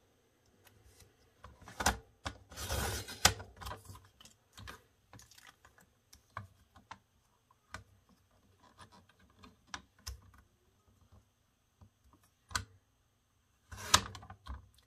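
Fiskars sliding paper trimmer cutting a strip of card: a scraping run of about a second as the blade carriage is pushed along the rail, amid scattered clicks and taps from the trimmer and the card being handled. Another short slide comes near the end.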